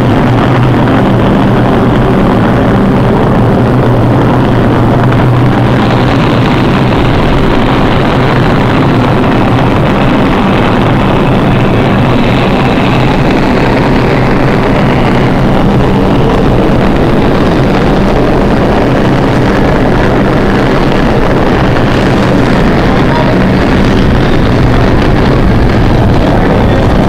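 New York City subway train running past the station platform, a loud, steady rumble of wheels on rails and traction motors as the cars move through the station.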